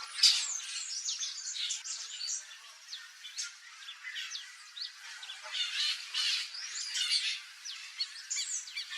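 Turquoise-fronted parrots calling: harsh squawks mixed with short whistled chirps and squeals, one after another, with louder squawks just after the start and again about two-thirds of the way through.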